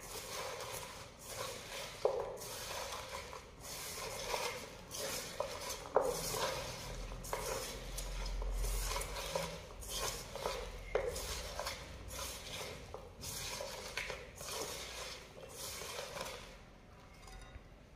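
Hands squeezing and tossing salted sliced onions with curry leaves in a stainless steel bowl: repeated rustling, squishing strokes with a few sharp knocks against the steel bowl, dying down near the end.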